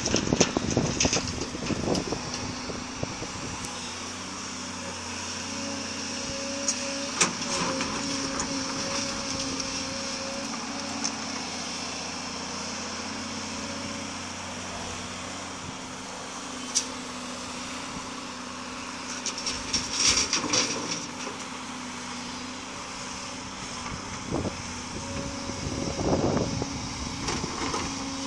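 Volvo crawler excavator's diesel engine running steadily under load, with a hydraulic whine, as it swings and digs. It is loudest at the start, when a bucket of dirt pours into the steel dump-truck bed, and there are louder rushing stretches about two-thirds of the way through and again near the end.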